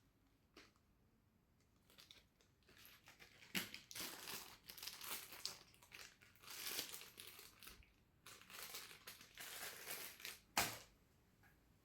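Plastic packaging crinkling and rustling as it is handled, in irregular bursts after a quiet start, with one sharp knock near the end.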